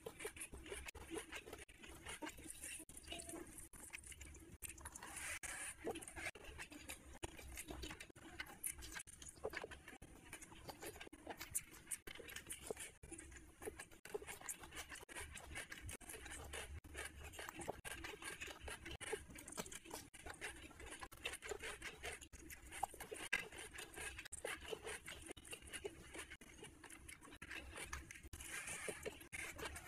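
Close-miked chewing and mouth sounds of a person eating rice and curry by hand, a steady run of many small clicks and smacks, along with fingers working the rice on the plate.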